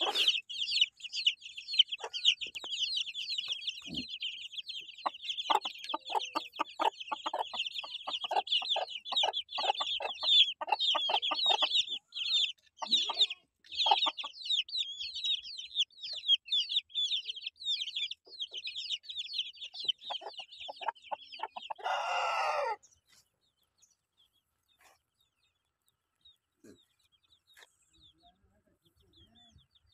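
A brood of Aseel chicks peeping constantly in a dense, rapid, high chorus, with an adult hen's lower clucks mixed in. About two-thirds of the way through a short, loud call cuts across the peeping, which then stops. After that it is nearly quiet, with a few faint peeps near the end.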